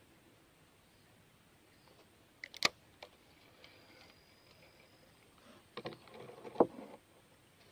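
A few scattered sharp knocks and clatters over a quiet background: a couple about two and a half seconds in, and a short cluster near the end that holds the loudest knock.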